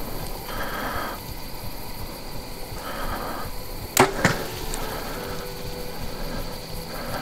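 A bow shot: the string snaps loudly about four seconds in with a short ringing twang, and a second sharp knock follows a split second later as the arrow strikes.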